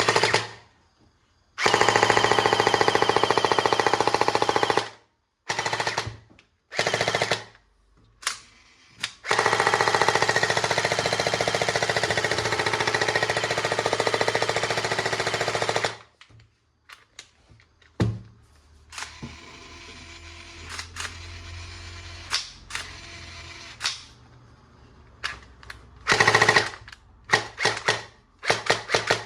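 Toy gun's electronic firing sound effect: rapid machine-gun fire in two long bursts of about three and six seconds, with several short bursts and clicks in between.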